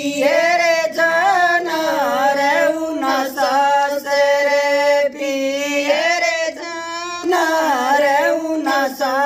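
Women singing a Haryanvi folk song together, drawing out long held notes with pitch bends and short breaks between phrases.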